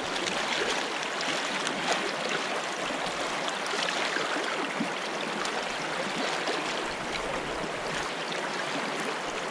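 Steady rush of a trout stream's flowing water.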